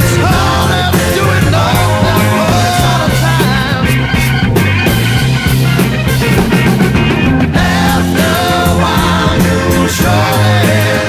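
Early-1970s psychedelic rock recording played by a full band, with a lead line that bends in pitch over steady low bass notes.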